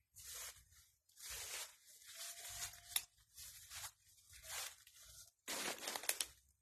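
Footsteps swishing through grass and undergrowth, about one rustling step a second, with a few sharp clicks.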